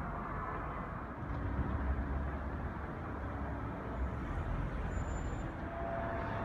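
Outdoor city ambience: a steady hum of road traffic, with a louder low rumble rising about a second and a half in.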